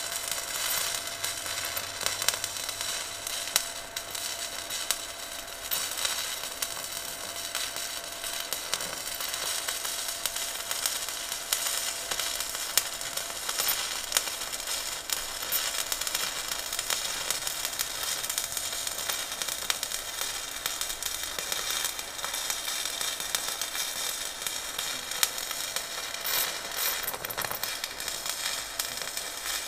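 Electric arc welding running continuously, a dense steady crackle.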